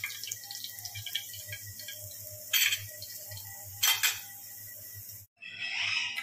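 Metal tongs clinking twice, about two and a half and four seconds in, as fried chicken patties are lifted from the oil and set on a plate, over a faint sizzle of hot frying oil.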